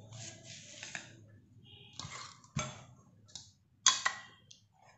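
Kitchen dishes and utensils being handled: soft rustling scrapes and a few light clicks and knocks, the sharpest about two and a half and four seconds in.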